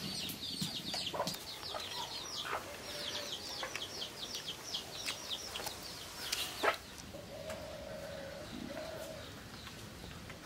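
Birds chirping in a rural yard: a fast run of short, high chirps, about four or five a second, for the first six seconds or so. After that come a few lower, drawn-out calls.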